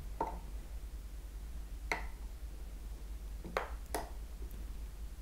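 Four brief, faint clicks and blips, the last two close together, from an Eachine TX16S radio transmitter being switched off and back on at its power button, over a steady low hum.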